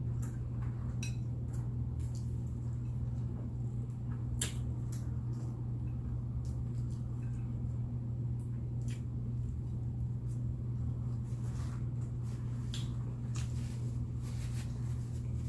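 A person quietly eating chicken wings: scattered small clicks and smacks of chewing and handling food, over a steady low electrical hum.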